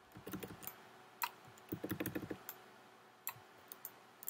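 Clicking of computer keys: two quick runs of light clicks, with single clicks between them and a few more near the end.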